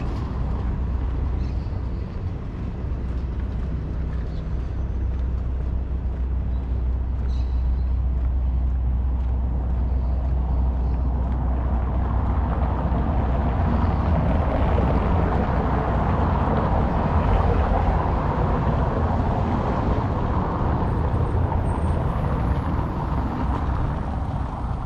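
Street traffic: a steady low rumble, with a motor vehicle passing that grows louder from about halfway through and fades near the end.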